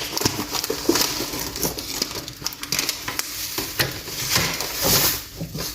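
Shredded kunafa dough rustling and crackling as it is pulled apart and crumbled, with many small irregular clicks.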